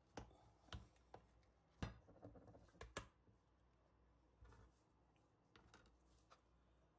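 Faint clicks and taps of a utensil against a bowl while the chilled red bean paste filling is worked smooth, a handful of them in the first three seconds.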